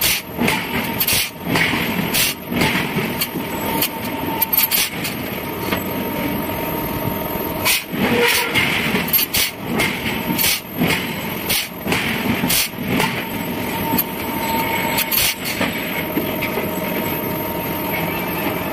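Forging-shop machinery running steadily, with irregular sharp metal clanks and knocks.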